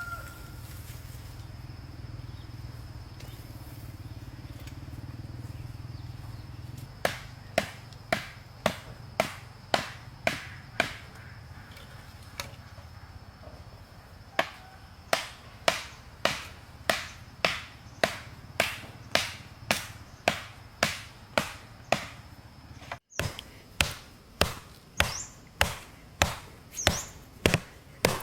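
Chopping with a hand tool: sharp, evenly spaced strikes, about three every two seconds. They start a few seconds in, pause briefly, then carry on steadily.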